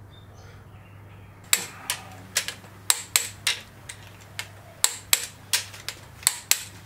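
Ratchet on the nose of an RB26 crankshaft clicking as it is worked, starting about a second and a half in. The sharp metallic clicks come about two to three a second, some in quick pairs, over a low steady hum.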